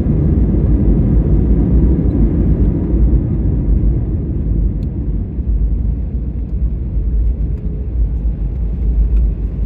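Airliner cabin noise heard from a window seat: a loud, steady low rumble of the engines and airflow, easing slightly about halfway through.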